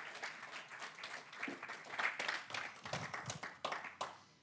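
Applause: several people clapping, thinning out and stopping about four seconds in.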